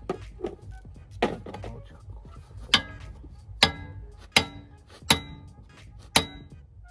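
Hammer striking steel on a car's front suspension: a few lighter knocks, then a steady run of loud, ringing metal blows about one every second.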